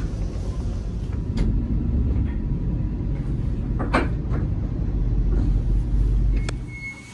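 Low, steady rumble of a KTX-Eum electric train slowing into a station, heard from the door vestibule, with a sharp knock about four seconds in. The rumble dies away near the end as the train comes to a stop, and a high beeping starts.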